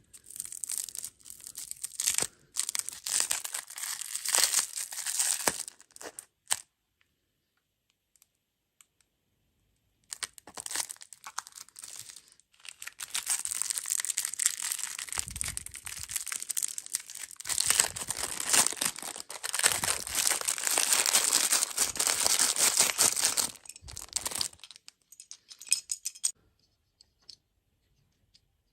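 Plastic candy or dessert packaging crinkling and tearing as it is handled and opened, in two long spells with a pause between, then a few light clicks near the end.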